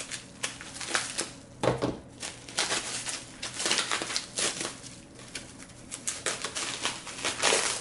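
Plastic vacuum-seal bag and cling wrap crinkling and crackling in irregular bursts as hands peel and handle it off a box of ammunition.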